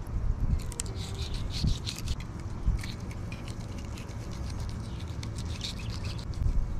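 Fillet knife slicing into a scaled redfish behind the head and along its body: irregular crackly scraping and crunching of the blade through scales, skin and flesh, over a steady low rumble.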